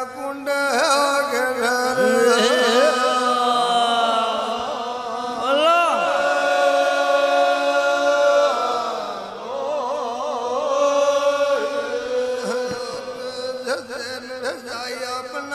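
Devotional naam chant to Dev Narayan: a voice singing long, held, wavering notes that glide from pitch to pitch, over a steady drone.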